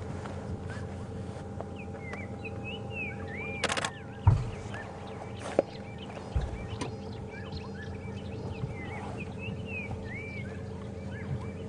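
Birds calling all round with many short chirps and whistles over a steady low hum. Just before four seconds in, a camera shutter fires a quick burst of clicks, with one more click later, and low thumps come at about four and six seconds, the first the loudest sound.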